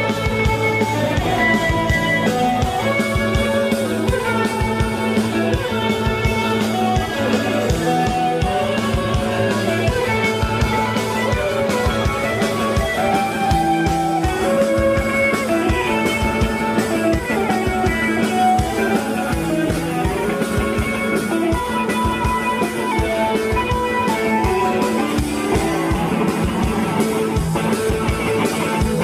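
Rock band playing live: electric guitars, bass guitar and drum kit in a loud, steady instrumental passage.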